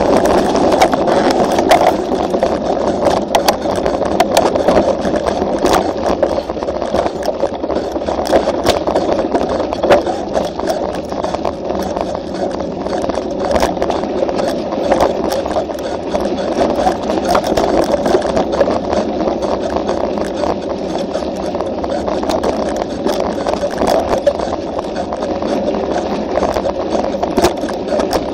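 Mountain bike descending a dirt trail, heard from a camera mounted on the bike: a steady rushing of tyres and air, with frequent sharp rattling clicks from the bike jolting over bumps.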